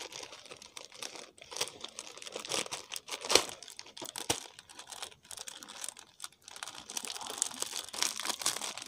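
Gift wrap crinkling and rustling as wrapped presents are handled, with one sharper crack about three and a half seconds in.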